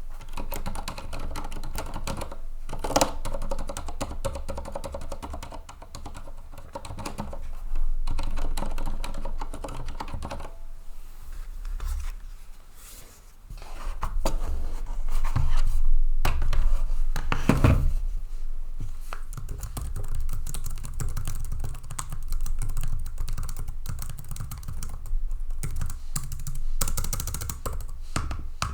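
Typing on a TEX Shinobi mechanical keyboard with silent red switches: a fast, continuous stream of key presses. After a short lull about twelve seconds in, typing continues on a Lenovo TrackPoint Keyboard II.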